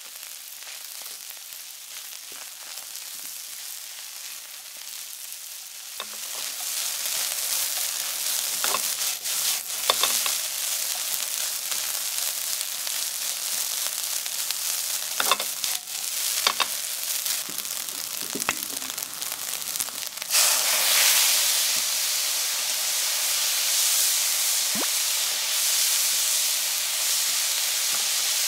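Egg fried rice sizzling as it is stir-fried in a frying pan on high heat, with a spatula scraping and knocking against the pan a few times. About twenty seconds in, the sizzle turns suddenly louder and hissier as sake is splashed into the hot pan.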